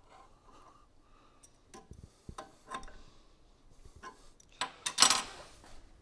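Scattered light metallic clicks and taps as a long steel frame bolt and the side-guard bracket are worked into place on a motorcycle frame, with one louder metal-on-metal clank about five seconds in.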